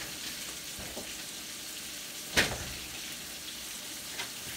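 Steak sizzling in a skillet, a steady frying hiss, with one sharp knock a little past halfway through.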